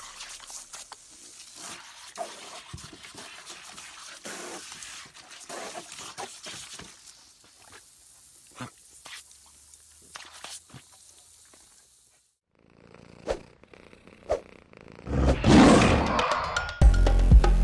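Water hissing and splattering from a garden hose as a dog leaps and snaps at the jet, with scattered clicks and splashes; this stops about twelve seconds in. After a short pause a loud big-cat roar sounds, and music with a steady beat starts near the end.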